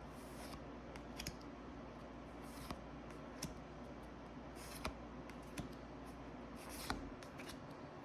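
Faint handling of Pokémon trading cards: scattered short clicks and brief rustles as the cards and foil pack wrapper are flipped through and shuffled, over a low steady room hum.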